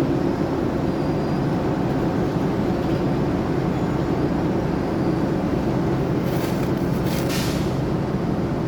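Heavy road-construction machinery engine running steadily at a constant, loud rumble, with two short hisses late on.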